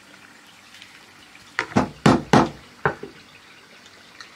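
Five quick, sharp knocks, starting about a second and a half in and over within about a second and a half, from kitchen work with the filling.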